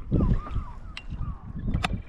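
Wind buffeting the microphone and water moving against a kayak on the sea, with honking geese calling in the first half second and two sharp knocks, one about a second in and one near the end.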